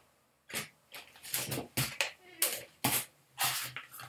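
Irregular rustling and knocking of packaged items being handled and shifted about, a string of short bursts.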